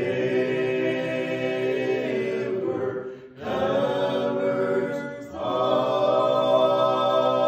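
Mixed-voice gospel quartet singing in close harmony without accompaniment, holding long sustained chords. The voices break off briefly a little after three seconds in and again just after five seconds, then come back in.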